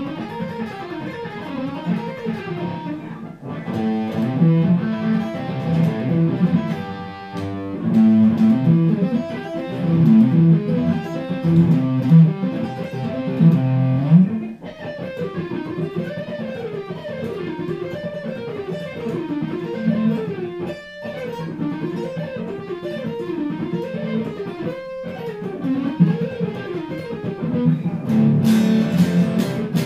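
Hardluck Kings Spider electric guitar played fast: quick rising and falling note runs, with a stretch of heavier low chord riffing in the middle, shredding to show off the pickups' tone.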